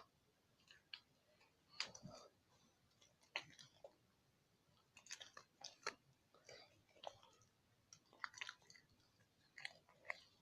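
Faint, irregular wet clicks and squelches of glitter-glue slime being kneaded by hand as it comes together with activator, still sticky.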